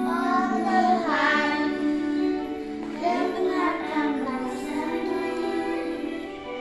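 Schoolchildren singing a song, with held, sustained notes that glide between pitches.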